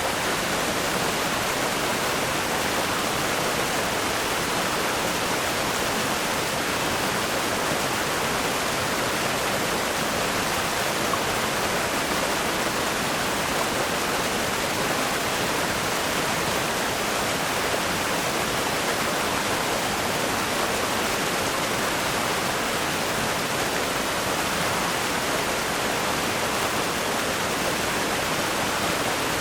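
River rapids rushing over rocks: a steady, even roar of fast-flowing water.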